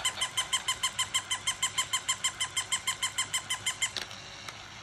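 Battery-operated plush toy dog giving a fast run of electronic yaps from its small speaker, about seven a second, that stops abruptly about four seconds in, followed by a single click.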